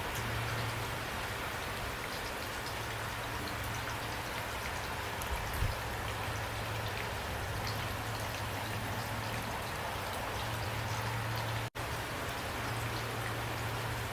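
Steady rain falling, with individual drop ticks heard over an even wash of rain noise and a low steady drone underneath. The sound cuts out for an instant about twelve seconds in.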